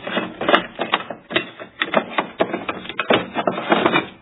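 Hard plastic clicking and knocking as a replacement projection-TV lamp module in its housing is worked into the set's lamp bay: a rapid, irregular run of clicks.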